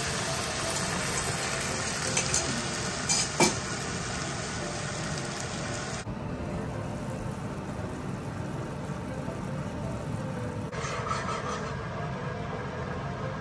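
Hamburg steak patties and sauce sizzling and bubbling in a nonstick frying pan, with a few sharp clinks of a spoon against the pan or glass about two to three and a half seconds in. The sizzle drops quieter about six seconds in.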